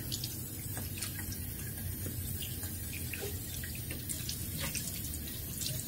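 Bathroom sink tap running steadily, with small splashes and drips as water is scooped up to rinse a face wash off the face.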